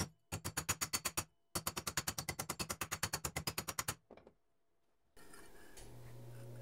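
Small hammer tapping a bent stamped-steel belt pulley against an anvil horn in quick, even runs of about nine light blows a second, broken by two short pauses, to straighten out the pulley's wobble. The hammering stops about four seconds in, and a low steady hum starts near the end.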